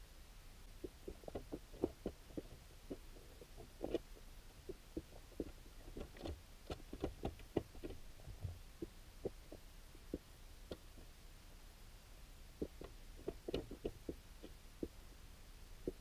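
Soft, irregular clicks and knocks picked up underwater in a creek through a GoPro's waterproof housing, coming in clusters with quieter gaps between, over a low steady rumble.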